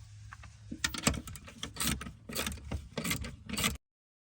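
Ratchet wrench with an 18mm socket turning out a seat bracket bolt: a run of uneven metallic clicks and rattles that starts about a second in and cuts off abruptly near the end.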